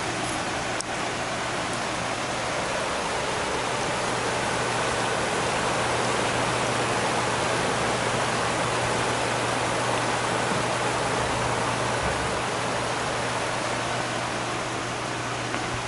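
Liquid nitrogen boiling off in a tray around a photomultiplier array mock-up as it is cold-soaked: a steady rushing hiss that swells slightly midway, over a low steady hum.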